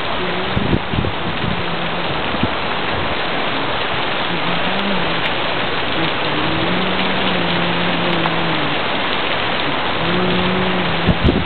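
Heavy rain pouring steadily on pavement and grass in a storm, a dense, even hiss. A faint low hum comes and goes underneath.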